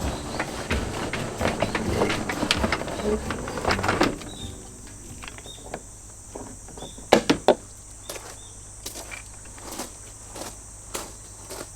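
Insects buzzing steadily at a high pitch, over a jumble of clattering handling noises for the first four seconds, then scattered sharp clicks, with three loud clicks close together about seven seconds in.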